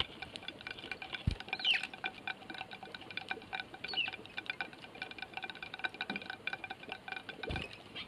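Eurasian tree sparrows pecking seed off a plate: a rapid, irregular ticking of beaks on the dish, with a few short chirps and a couple of dull thumps.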